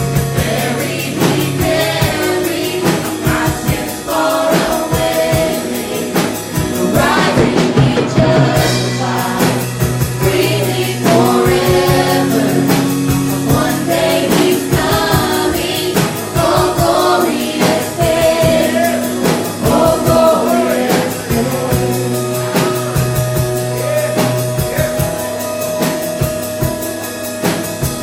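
Church congregation singing a gospel hymn with instrumental accompaniment.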